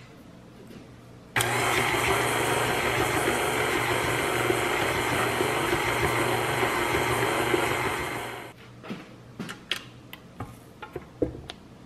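KitchenAid Artisan stand mixer switched on about a second in, its motor running steadily while the flat beater creams softened butter and dark brown sugar in the steel bowl. It winds down and stops a little past halfway, followed by a few light clicks and knocks.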